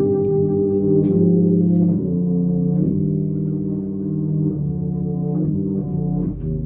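Brass band playing slow, held chords that shift to new chords several times, with no loud drum strokes.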